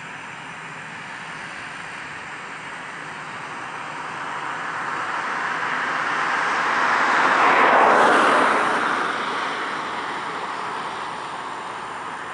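Jet engine noise from an Airbus A319-115(CJ)'s twin CFM56-5B turbofans at taxi power as the jet taxis past. The sound builds to its loudest about eight seconds in, then fades.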